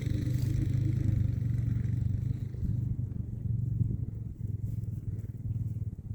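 Small off-road vehicle engine running at low speed with a steady, rapidly pulsing low hum; its higher tones fade after about two seconds, leaving a lower idle.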